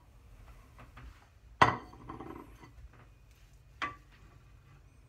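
A plate set down on the kitchen worktop with a sharp clatter that rings on briefly, about one and a half seconds in, then a lighter clink of crockery near four seconds.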